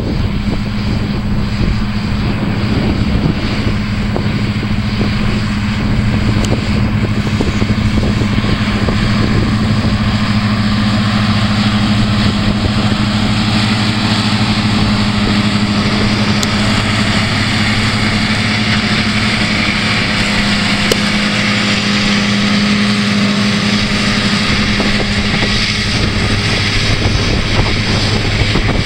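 New Holland TM165 tractor running steadily at working revs while pulling a trailed mower-conditioner through standing grass for silage: a constant low engine hum over an even hiss of the cutting and crop.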